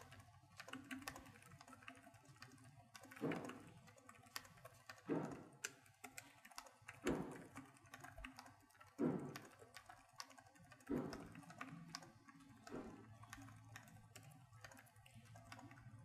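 Fast touch-typing on an ASUS Marshmallow KW100 membrane keyboard: a rapid stream of faint, soft key presses from its really silent membrane switches, with a louder thud every two seconds or so.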